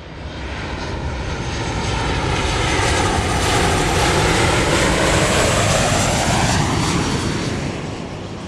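Large propeller airplane flying past. The engine sound swells, peaks in the middle, and drops in pitch as the aircraft passes, then fades away.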